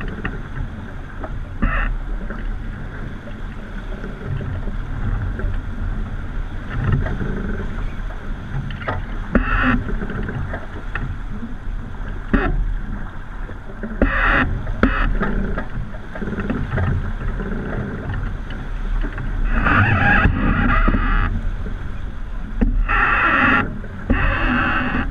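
Wind rumbling on the microphone and water rushing past the hull of a sailing yacht heeled under sail, with louder rushes of spray several times.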